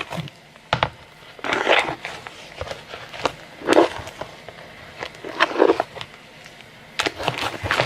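Fluffy slime made of glue, shaving cream and borax activator being stirred in a bowl: short squelches every second or two, with a few sharp clicks. The slime is just starting to come together.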